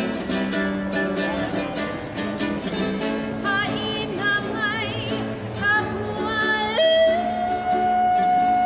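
Woman singing with vibrato to her own strummed E.L. Woodworks traditional tenor ukulele. About seven seconds in, her voice leaps up to a long, high held note.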